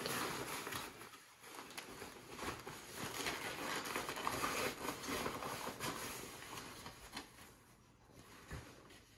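Fabric of an Exo Mountain Gear K3 6400 backpack and a plastic water bag rustling and crinkling as the bag is stuffed into a pocket of the pack, growing quieter toward the end.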